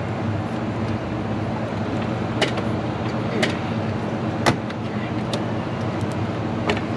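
A steady low hum with four sharp metallic clinks spread through it, hand tools knocking against the radiator hose fittings and clamps as the upper radiator hose is worked off.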